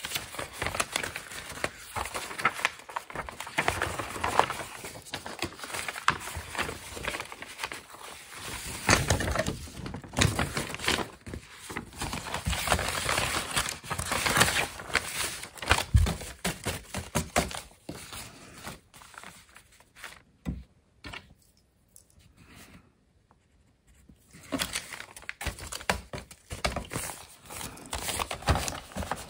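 Sheets of paper rustling and sliding as they are handled and sorted on a work table, with light taps and one short low thump about halfway through. It goes quiet for a few seconds about two-thirds of the way in, then the rustling resumes.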